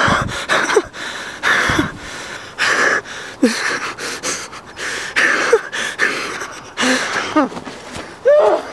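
A man panting and gasping hard while running, with ragged breaths roughly once a second, some carrying a short voiced groan. A higher voiced cry comes near the end.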